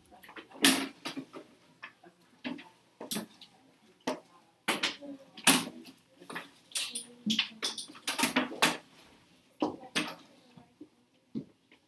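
Irregular sharp knocks, taps and clatter of small hard objects being handled and set down, about a dozen in all, some in quick clusters.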